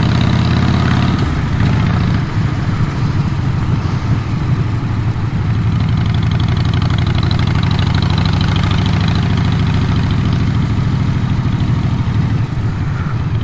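Motorcycle engine running steadily as the bike is ridden, a continuous low rumble.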